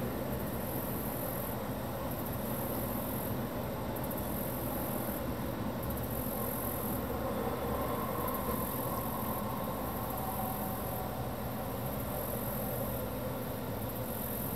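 Steady, distant rumble of aircraft engines.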